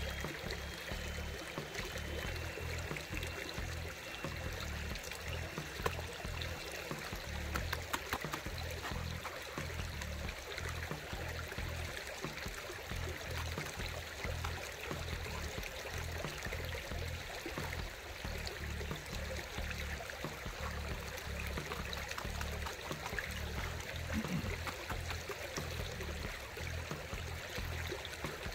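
Creek water running and trickling, under background music with a pulsing bass line.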